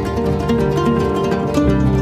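Background music led by plucked strings, with notes changing in steady steps.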